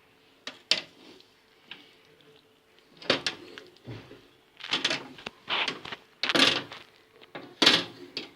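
Metal baking tray being tilted and shifted on a hard surface: a couple of sharp clicks, then a run of short scrapes and knocks from about three seconds in.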